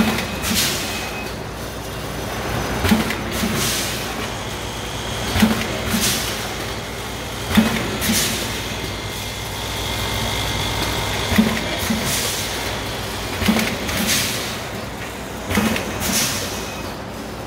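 Automatic rotary premade-pouch granule packing machine running: a steady motor hum with pairs of sharp clacks and short pneumatic air hisses repeating roughly every two seconds as the stations cycle.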